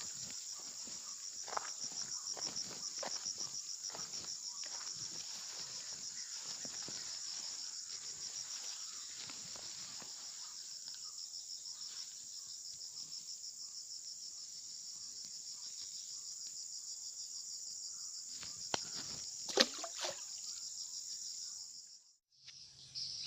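Steady high-pitched chorus of insects trilling, a fast pulsing buzz, over faint rustling and small clicks, with two sharper knocks a little before the end.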